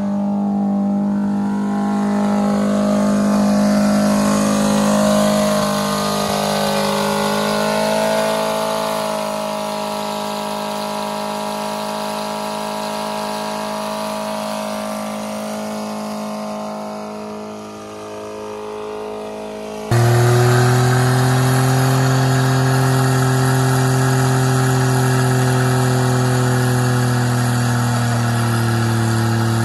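Small car engines held at high revs with the drive wheels spinning in a burnout, a steady engine note. About two-thirds of the way through it switches abruptly to a second car's engine, louder and lower-pitched and also held steady under full throttle.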